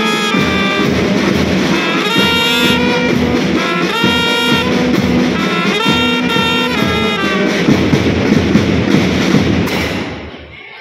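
School marching band playing: euphoniums and trumpets sounding held chords in short phrases over marching drums. The music falls away near the end.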